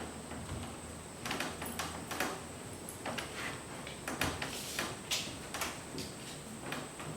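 A string of irregular knocks, clicks and scrapes, like objects being handled and moved, with most of them after the first second.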